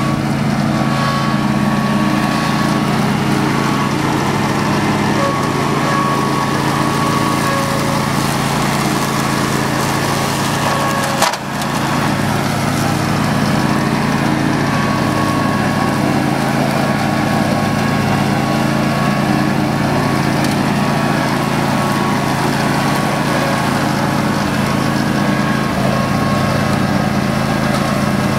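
The 14 hp Vanguard V-twin engine of an older Garden Way Troy-Bilt riding mower running steadily while its deck cuts grass, with one brief dropout about eleven seconds in.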